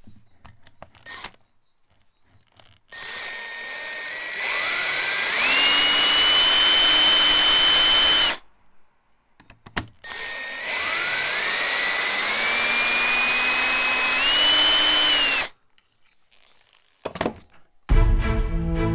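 A cordless drill run twice for about five seconds each, its bit in the end of a wooden block: each time the motor whine climbs in pitch as it spins up, then holds steady until the trigger is released.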